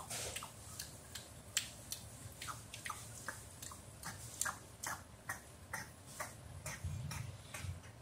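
Chewing: small irregular clicks and smacks, about two or three a second.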